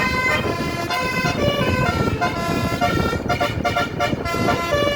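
A bus's 36-note Basuri telolet horn playing a quick tune, its notes changing several times a second, over the rumble of engine and road.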